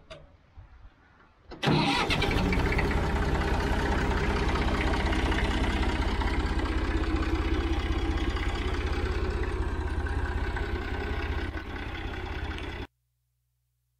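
1962 Massey Ferguson 50 diesel tractor engine starting about a second and a half in, then running steadily. The sound cuts off suddenly near the end.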